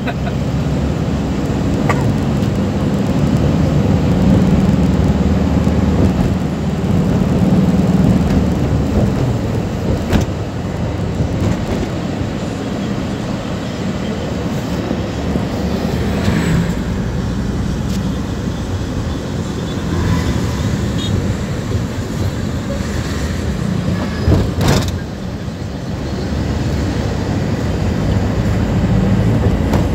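Road and engine noise inside a moving passenger van: a steady low rumble with a few short knocks along the way.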